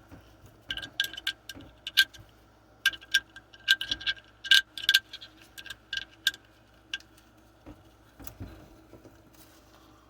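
Irregular metallic clicks and clinks of a steel Allen wrench working the bolts of an oil block-off plate, a few a second with short ringing, tailing off after about seven seconds.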